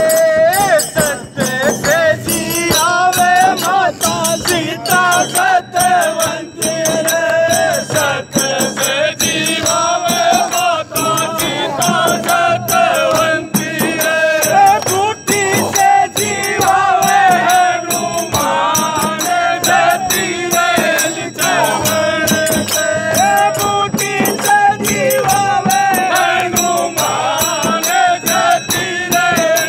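Rajasthani Shekhawati dhamal folk music: daf frame drums beating a steady rhythm with small brass hand cymbals clashing and jingling, under a continuous wavering melody.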